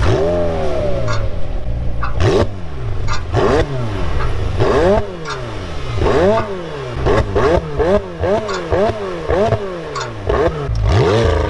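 Sports car engine revved repeatedly, its pitch climbing sharply and dropping back about a dozen times, with short sharp cracks between some revs.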